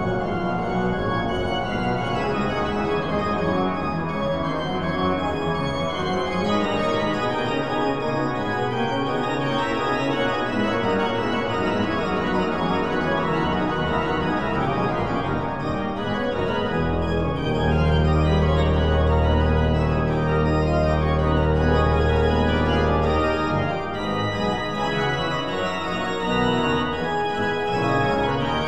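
Organ music playing sustained chords. A deep bass note comes in about eighteen seconds in and holds for about six seconds.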